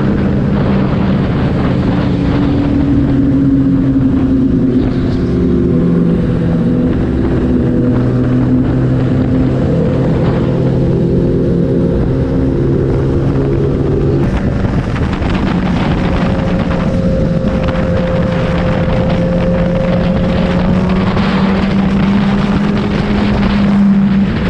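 Kawasaki ZX-10R's inline-four engine running under way, heard onboard with wind noise over the microphone. The engine note changes about halfway through, then climbs slowly.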